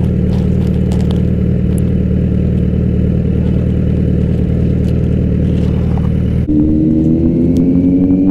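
Motorcycle engine running steadily under way. About six and a half seconds in the note changes abruptly and then climbs in pitch as it accelerates, with another brief break at the very end, like a gear change.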